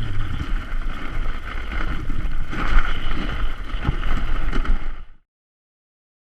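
Steady rushing noise with a low rumble, like wind buffeting the microphone while moving outdoors, cutting off abruptly about five seconds in and followed by silence.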